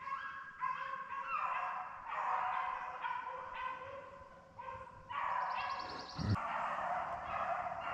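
A pack of beagles baying in full cry while running a rabbit, several dogs giving long, drawn-out, overlapping notes.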